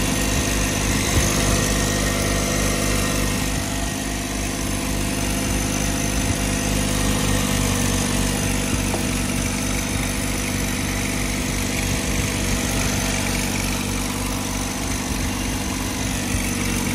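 1991 Mercedes-Benz W124 300E's straight-six engine idling steadily, with a faint click about a second in.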